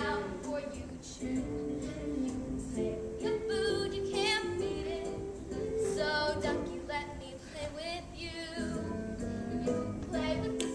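A song from a stage musical: a singing voice over a steady instrumental accompaniment.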